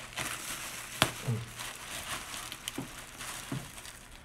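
Plastic bubble wrap crinkling and rustling as it is handled and cut open, with irregular crackles and a sharp snap about a second in.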